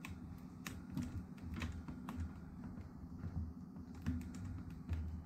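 Plastic display bezel of a Lenovo ThinkPad T490s being pressed on by hand, its clips snapping into place: a run of irregular sharp plastic clicks over dull handling bumps.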